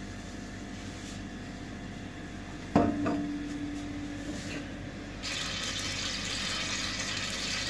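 Cooking oil poured from a plastic jug into a large aluminium pot. A little under three seconds in, a single knock on the pot rings on briefly. From about five seconds in, a steady hiss starts as the oil begins to sizzle in the hot pot.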